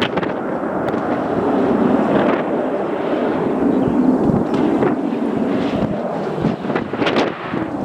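Aircraft engine noise from a landing airliner, with wind buffeting the microphone in gusts, a few sharper gusts near the end.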